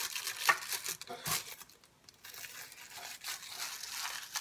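Packaging crinkling and rustling as it is handled, with two sharp knocks about half a second and a second and a quarter in.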